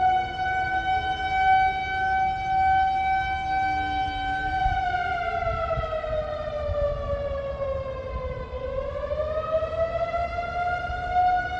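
Warning siren sounding a steady high wail, its pitch sagging about halfway through and climbing back to the same note near the end, with a fainter second tone falling away in the first few seconds, over a low rumble. It is the alarm signal of an earthquake mock drill.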